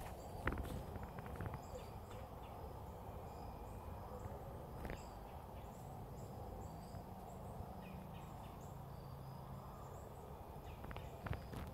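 Quiet woodland ambience: faint, short high bird chirps scattered throughout, with a few soft rustles and ticks in dry leaf litter.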